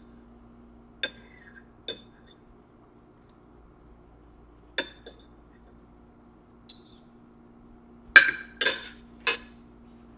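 Metal fork and spoon clinking against a ceramic dinner plate: a few separate light clinks, then a quicker group of louder clinks near the end as the utensils are put down on the plate.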